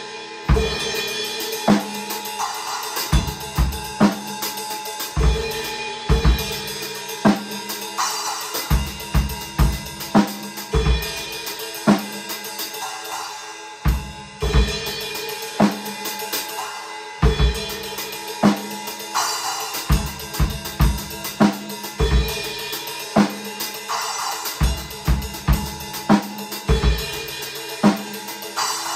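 Acoustic drum kit played with sticks in a steady, repeating groove: bass drum kicks, snare hits and cymbal crashes over hi-hat.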